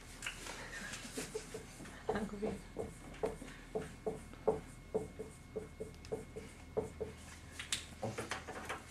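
Whiteboard marker squeaking against the board in short strokes as characters are written, two or three squeaks a second. A few sharp clicks come near the end.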